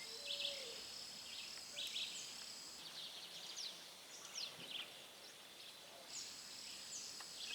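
Birds chirping and calling in short quick notes and sweeps, over a steady high-pitched buzz that stops about three seconds in and starts again near the end.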